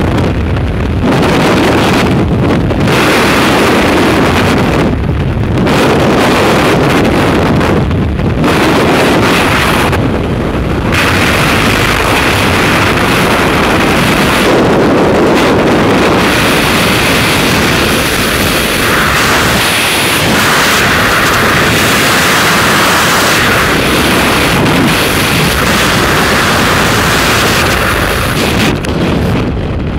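Freefall airflow roaring over a skydiver's helmet-mounted camera microphone: a loud, steady rush of wind. It eases off near the end as the parachute deploys and the fall slows.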